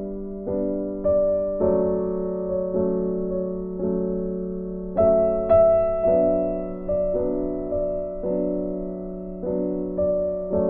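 Background music: a gentle piano or electric-piano melody, notes struck about every half second to a second and dying away after each.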